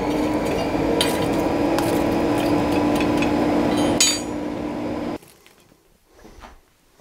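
Coal forge's electric air blower running with a steady hum and rush of air through the fire, with a few metallic clinks of the bar and tongs in the coals; it cuts off suddenly about five seconds in.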